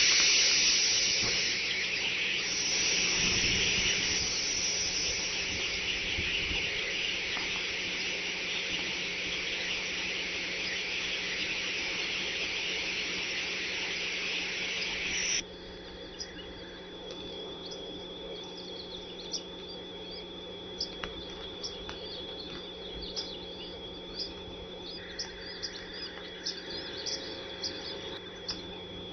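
Steady high hiss on a bald eagle nest-cam audio feed, which cuts off abruptly about halfway through; after it, a quieter background with a thin steady high whine and scattered short high chirps.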